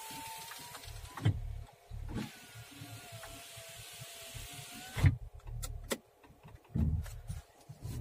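Opel Cascada's right-door power window motor whining as the glass runs, in two runs, the second ending in a sharp knock about five seconds in. A few clicks and thumps from the door follow near the end. The owner suspects the glass mounting may be the source of the noise.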